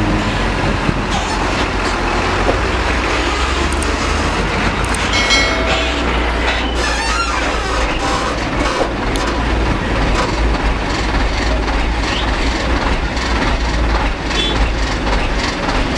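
Heavy Hino diesel trucks running close by, with one driving slowly past on a rough dirt road: a steady, loud, low engine rumble. A brief high-pitched squeal comes about five seconds in.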